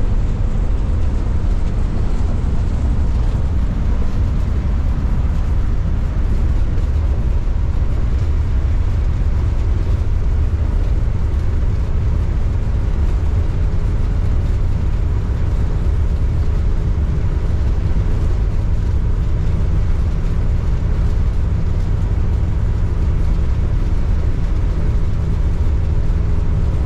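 Steady engine and road noise inside a motorhome's cab at highway speed: a deep, even rumble with a faint steady hum above it.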